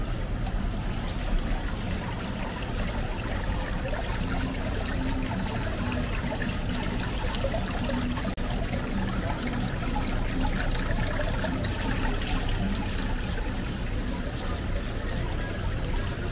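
Steady rain on a city street: an even hiss of falling water with many small drips and trickling runoff.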